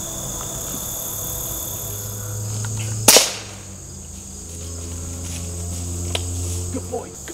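A single sharp shot from a .22 Umarex pellet air rifle about three seconds in, over a steady chorus of crickets and other insects.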